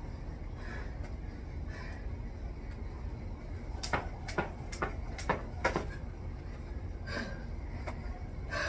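Heavy breathing, with a run of five sharp slaps about two a second in the middle: a jump rope hitting the floor.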